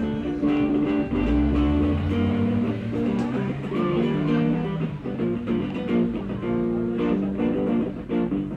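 Electric guitar played live, picking out a melody over chords.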